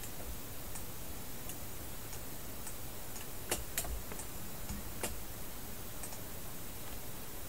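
Scattered faint clicks of a computer mouse over a steady hiss, with two sharper clicks about three and a half seconds in and another near five seconds.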